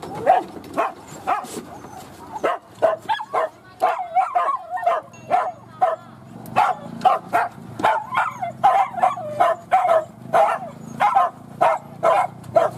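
Hunting dogs barking over and over, short quick barks coming a few times a second and sometimes overlapping.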